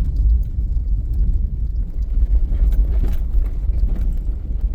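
Jeep driving, a steady low rumble of engine and tyres with a few faint knocks and rattles.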